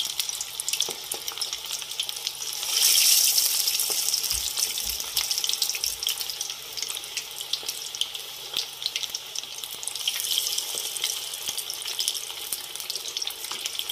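Batter-coated chicken pieces sizzling and crackling as they deep-fry in hot oil on a high flame, the sizzle swelling louder about three seconds in.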